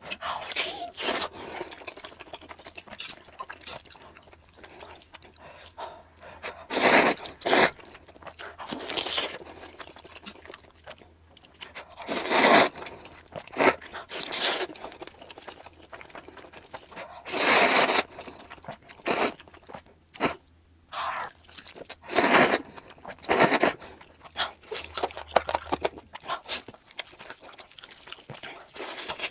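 Close-up mukbang eating sounds: biting and chewing grilled chicken drumstick with mayonnaise, with many small wet mouth clicks and several louder, longer noisy bursts.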